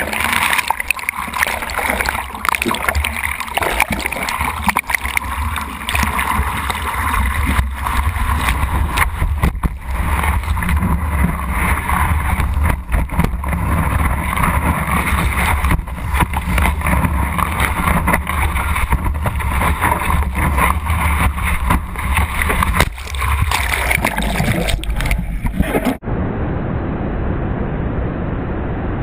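Water rushing and splashing around a surfboard-mounted GoPro while riding a wave, with heavy wind rumble on the camera's microphone. Near the end it changes abruptly to a duller, steady wash of surf.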